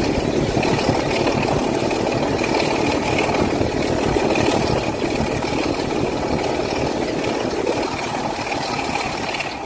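Diesel engine of British Rail Class 25 locomotive 25185, a Sulzer six-cylinder, running steadily, easing slightly near the end.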